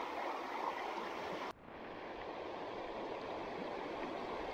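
Steady rush of a shallow, stony river flowing. About a second and a half in it breaks off abruptly for a moment and comes back duller, with less treble.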